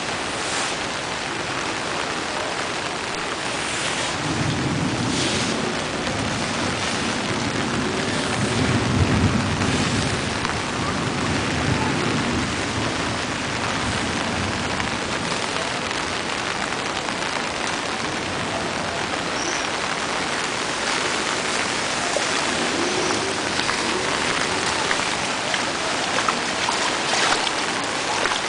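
Heavy rain falling steadily on roofs, concrete and floodwater, with a low rumble from about four to twelve seconds in.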